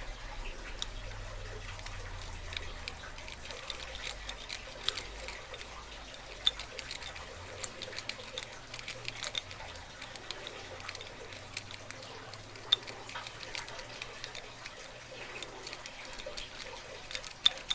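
Lock pick and tension wrench working a lock's pin tumblers: faint, irregular small metallic clicks and ticks throughout.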